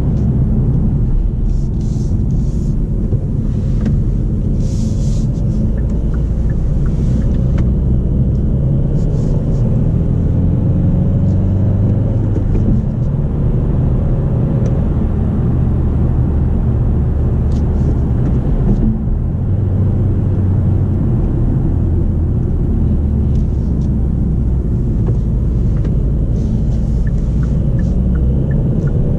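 Kia XCeed 1.6 CRDi four-cylinder turbodiesel running under way, heard from inside the cabin with steady road noise. Its pitch rises and falls a few times.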